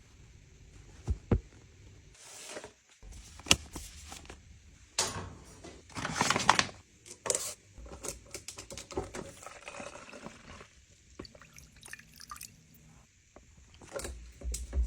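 Liquid being poured into a container, among clicks and knocks of containers being handled.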